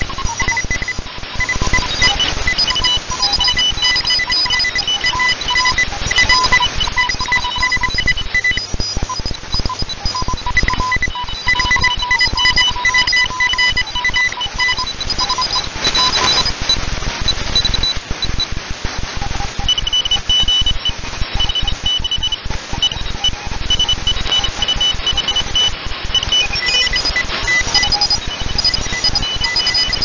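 Shortwave receiver tuned to 14015.0 kHz, in the Morse (CW) segment of the 20-metre amateur band: keyed beeping tones, typical of Morse code, over a steady hiss of static. The keying stops for a few seconds around the middle, with a short crash of static, then starts again.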